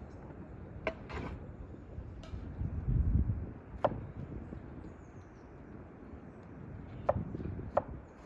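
Kitchen knife cutting tomatoes on a wooden cutting board: a few sharp knocks of the blade on the board, two of them about a second apart near the end, over steady outdoor background. A brief low rumble comes about three seconds in.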